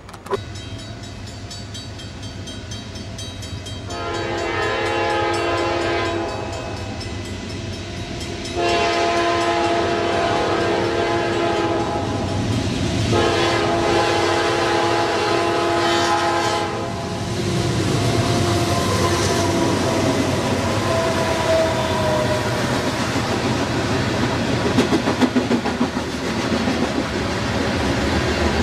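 Diesel freight locomotive's air horn sounding several long blasts for a grade crossing over its rising engine rumble, the horn stopping about 17 seconds in. The locomotive and covered hopper cars then roll past with a steady wheel rumble and clicks from the rails.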